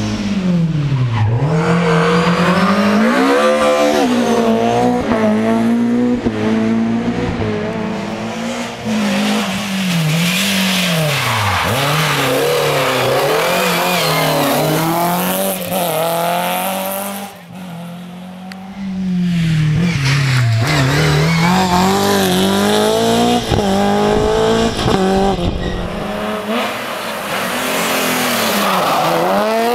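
BMW M3 rally car engines revving hard. The revs drop and climb again several times as the cars brake and accelerate through the gears, with a short lull about two thirds of the way through.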